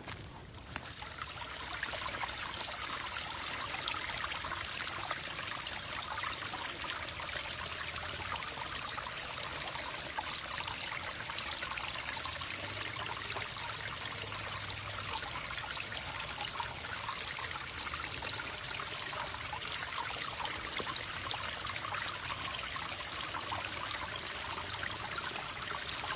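Small creek running and trickling steadily, the water from a wet seep draining downhill. It swells in over the first couple of seconds, then holds even.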